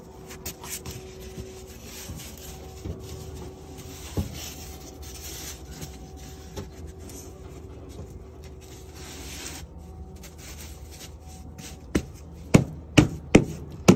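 Rubbing and scraping as a mortar-buttered EPS insulation board is handled and set against a wall. Near the end come sharp hand slaps on the board, about two a second, bedding it into the adhesive.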